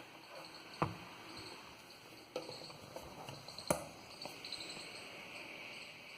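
Computer cooling fan running steadily at idle with an audible whirring hiss, noticeable even though the system is not under load. A few sharp clicks sound over it, the loudest two just under a second in and just under four seconds in.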